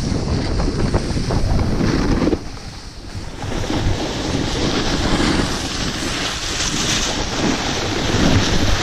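Wind buffeting a GoPro's microphone during a fast descent of a snow slope, mixed with the rushing scrape of edges sliding on packed snow. It eases briefly about two and a half seconds in, then picks up again.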